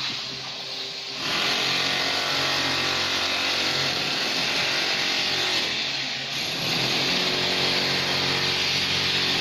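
A power tool starts up about a second in and runs steadily with a loud hiss over a low hum, easing off briefly around six seconds in before picking up again.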